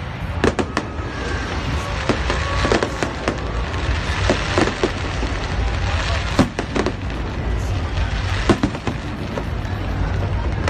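Aerial fireworks shells bursting: irregular sharp bangs and pops, often several close together, over a steady low background rumble.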